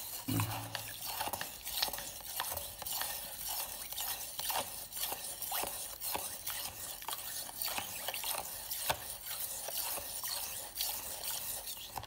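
A table knife stirring salt into hot water in a plastic jug: quick, irregular scraping and clinking strokes as the blade drags through salt that has not yet dissolved.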